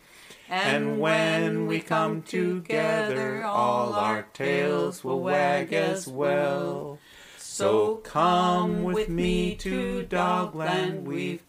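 A man singing unaccompanied, in long held notes with short breaks between phrases.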